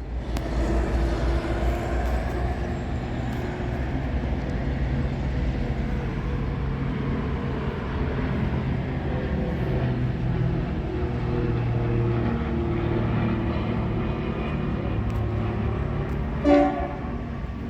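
GL class diesel-electric freight locomotive running with a steady low engine drone, with one short horn toot near the end.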